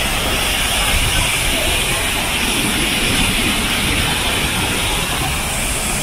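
Steady, loud rush of water falling from an artificial waterfall.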